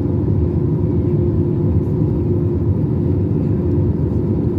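Steady roar of engine and airflow noise inside the cabin of an Airbus A321-200 in flight, heard from a window seat over the wing, with a faint steady hum.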